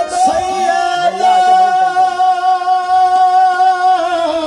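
Qawwali: a male lead singer holds one long sung note over harmonium accompaniment, and the note drops away near the end.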